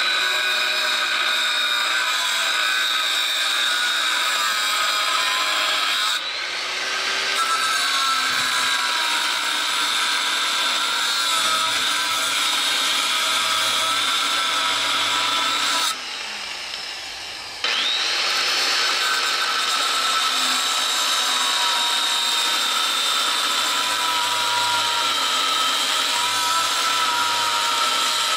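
Electric angle grinder with a cutoff wheel cutting through steel square tubing and its welds, a steady high whine. The pitch dips briefly about six seconds in, and the sound drops out for about a second and a half around two-thirds of the way through, then winds quickly back up.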